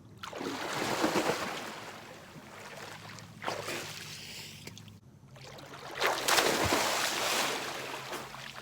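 Lake water splashing around a swimmer, in surges: about a second in, briefly at three and a half seconds, and again from about six seconds in.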